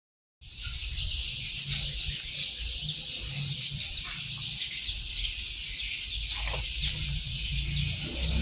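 Dense, steady chorus of night insects, shrill and continuous, over a low rumble, picked up by a phone's microphone while filming outdoors at night; it starts abruptly a moment in.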